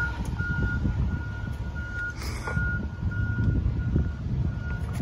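A vehicle's reversing alarm beeping steadily at one pitch, about one and a half beeps a second, over a low rumble, with a short burst of noise about two seconds in.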